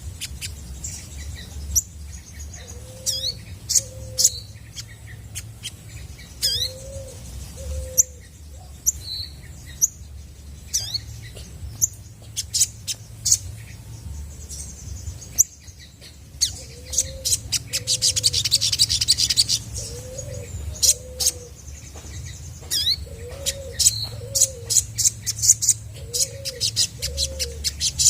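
Olive-backed sunbird calling: sharp high chirps and quick down-slurred whistled notes, with a rapid buzzing trill about two-thirds of the way through. Behind it, a low two-note cooing call repeats every few seconds.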